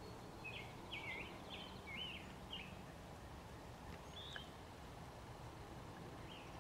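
A songbird singing a quick run of about five short, wavering whistled notes, then a single note twice more. Under it is faint, steady background noise.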